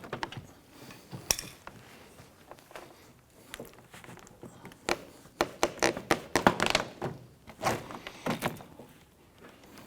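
Plastic interior door trim panel being pulled up and off the car door: a series of knocks and clicks, busiest about five to seven seconds in.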